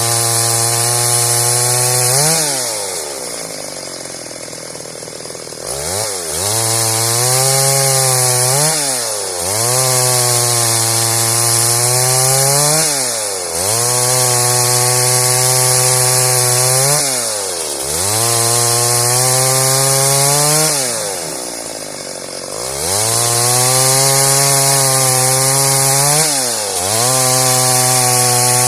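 Stihl MS 382 two-stroke chainsaw cutting wood under load at steady high revs. About every three to four seconds the throttle drops off and the engine revs straight back up. Early on there is a longer, quieter spell before it goes back into the cut.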